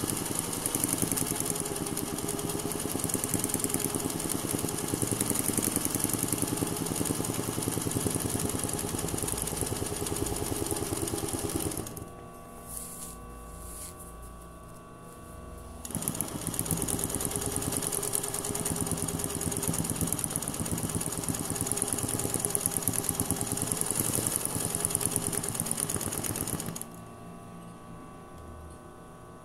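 Sewing machine running fast in free-motion embroidery, a steady rapid stitching. It stops for about four seconds partway through, starts again, and stops a couple of seconds before the end.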